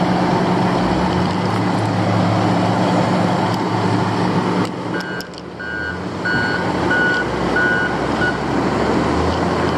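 Diesel engine of a front-end loader running loud and steady, its backup alarm beeping about six times, twice a second, in the middle of the stretch as the machine reverses.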